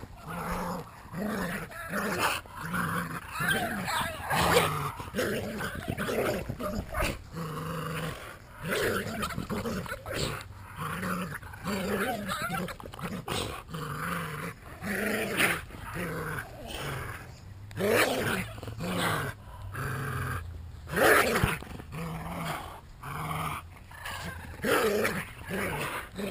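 Entlebucher Mountain Dogs play-growling as they tug on a toy: a steady run of short growls, one after another, the playful growling of a tug-of-war game.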